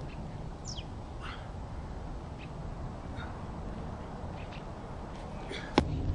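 Birds calling with short, high, falling chirps several times over steady low background noise; near the end a single sharp knock, the loudest sound.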